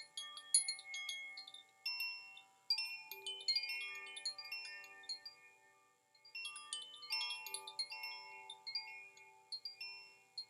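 Zaphir spring chime, a wind chime tuned to G, B, D and A, rung in flurries of overlapping bell-like notes that ring on and fade. The ringing dies away about six seconds in, is set going again, and fades near the end.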